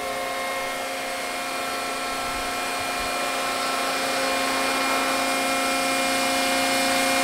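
Accurpress CNC hydraulic press brake running during back-gauge calibration: a steady, even hum from the hydraulic power unit and the back gauge drive as the gauge travels to its limit, growing slightly louder.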